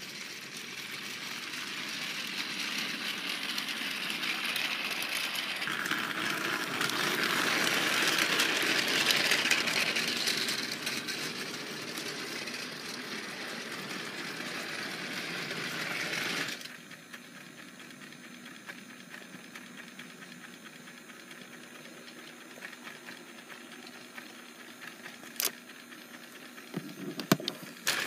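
Battery-powered Trackmaster toy train running on plastic track, its motor whirring and wheels rattling, growing louder as it comes near. The sound drops away abruptly a little past halfway, leaving a faint steady hum and a couple of sharp clicks near the end.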